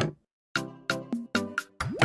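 Background music with a steady beat of struck, pitched notes, cutting out briefly just after the start.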